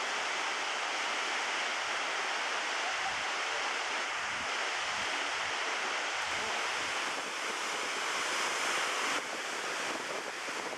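Steady rushing of a large chute waterfall and rapids on the Petrohué River, a dense hiss of white water; it steps down abruptly about nine seconds in.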